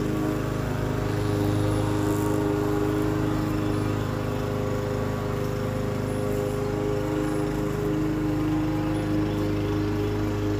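Lawn mower running steadily at a constant speed, with an even, unbroken engine note.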